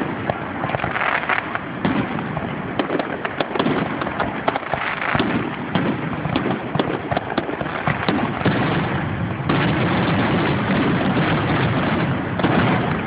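Aerial fireworks going off in rapid succession, a dense run of cracks and pops that turns louder and thicker into a continuous crackle about nine and a half seconds in.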